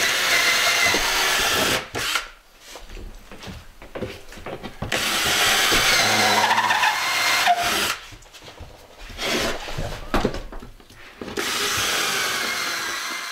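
Cordless drill boring pilot holes down through a 2x4 into the floor for lag screws, running in three long stretches of a couple of seconds each. Between runs there are quieter clicks and knocks of the drill being handled and moved.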